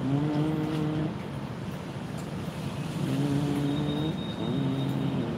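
Motor vehicle engines running and revving on a nearby road, in a few spells of about a second each, with the pitch rising and falling.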